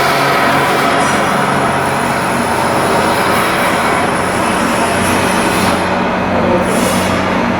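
Steady, loud machinery running, a continuous noisy drone with a low hum.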